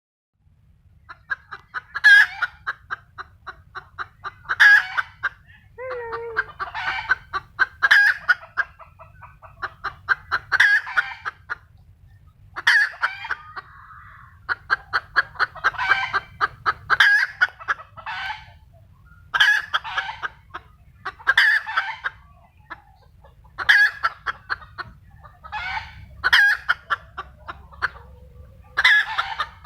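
A chicken cackling over and over: each call is a quick run of clucks that ends in a louder squawk, repeating about every two to three seconds.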